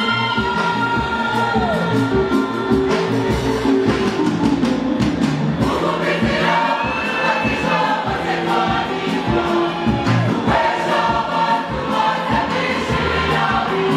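A youth choir of men's and women's voices singing a lively gospel song, with a steady beat underneath.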